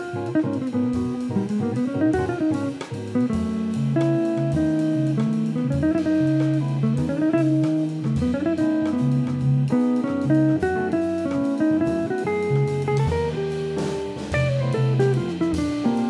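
Small jazz band playing, with guitar to the fore over a drum kit and cymbals, and accordion and Rhodes electric piano in the group. Runs of notes rise and fall over a moving bass line.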